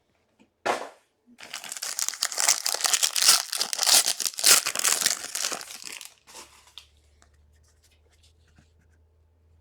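Plastic wrapping being torn off and crinkled as a sealed trading-card box is opened, a dense ripping and crackling lasting about five seconds after a short knock, then fading out.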